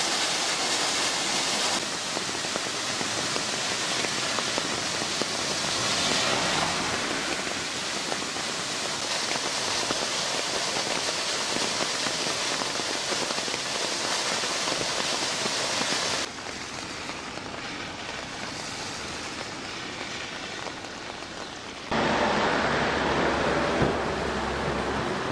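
Steady rushing hiss of falling water from rain runoff cascading down a roadside rock face. It drops in level about two-thirds of the way in, then comes back louder with a low rumble underneath near the end.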